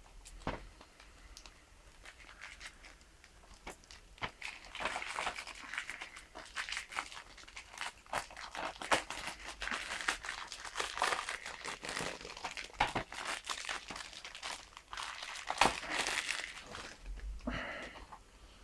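Plastic shrink-wrap being torn and peeled off a DVD case, crinkling and crackling in a dense run of small snaps from about four seconds in until near the end, after a few faint rustles at the start.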